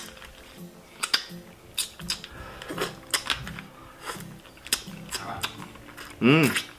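Close-up eating of lobster by hand: irregular sharp clicks and crackles of shell pieces being broken and bitten, with wet mouth smacks as meat is sucked from the legs. About six seconds in, a short hummed 'mmm' rises and falls in pitch.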